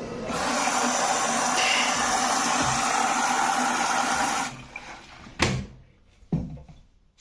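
Water rushing into an Electrolux EW1077F washing machine, a steady hiss that cuts off after about four seconds, followed by two sharp knocks a second apart.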